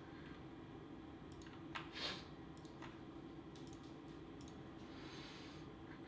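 Faint scattered clicks and a short rustle about two seconds in, over a low steady hum: small objects being handled.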